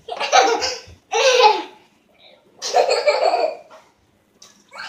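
A person laughing in three loud bouts, each a short run of breathy laughs.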